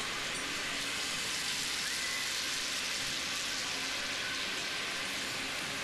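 Steady, even hiss with no distinct events: the background noise of an old TV broadcast recording.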